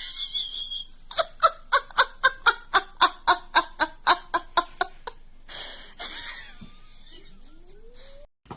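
High-pitched laughter: a fast run of short 'ha' pulses, about four or five a second, lasting some four seconds and then trailing off.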